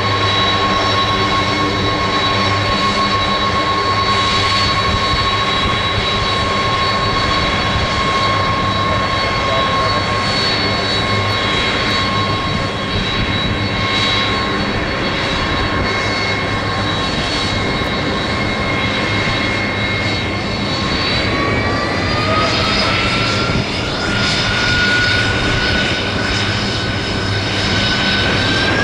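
McDonnell Douglas KC-10 Extender's three General Electric CF6 turbofans running at low power with a steady whine while taxiing. About two-thirds of the way through they spool up, the whine climbing in pitch, and it climbs again near the end.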